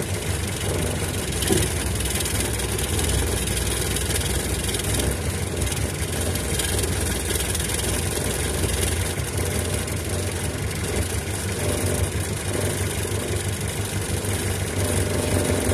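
The engine of a 1956 Land Rover Series runs steadily as it is driven, heard from inside the cab.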